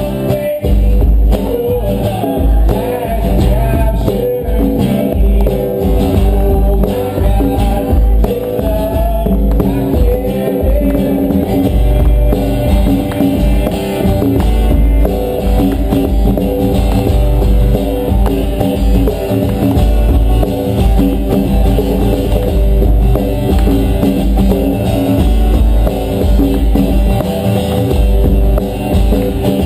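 Live acoustic worship music: a strummed acoustic guitar with a djembe drum keeping the beat, and voices singing.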